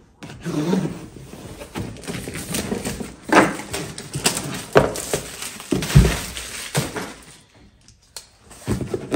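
Cardboard box being opened and its packed contents handled: irregular rustling and scraping with scattered knocks, the loudest a dull thump about six seconds in.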